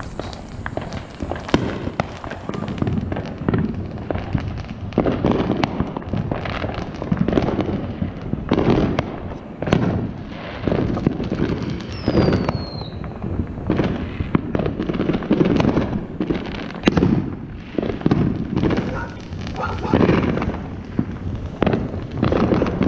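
Many consumer fireworks going off across a neighbourhood: dense, overlapping bangs and crackles with no pause, and a short falling whistle about twelve seconds in.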